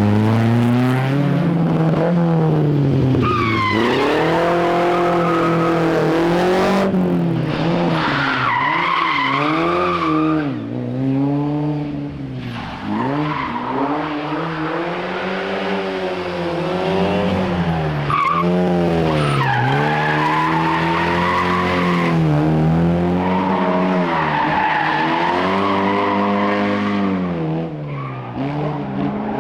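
Rally car engine driven hard on a stage, its pitch rising through each gear and dropping sharply on every shift and lift-off, over and over.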